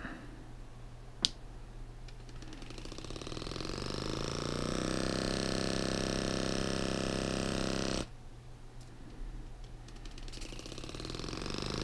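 A click, then a Youlan percussion massage gun with a 16 mm stroke starts up. Its hammering rises in speed over a couple of seconds, runs steadily, and stops abruptly about eight seconds in.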